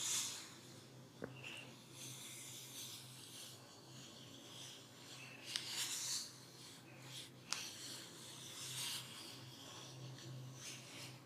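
Hands rubbing and stroking over skin in a massage, in swishing strokes, with a few sharp clicks, over a low steady hum.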